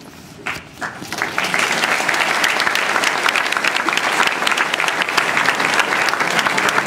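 Audience applauding: two single claps about half a second in, then dense, steady clapping from about a second in.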